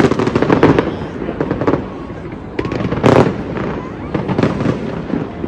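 Aerial fireworks going off overhead in rapid volleys of bangs and crackles, with the loudest burst about three seconds in.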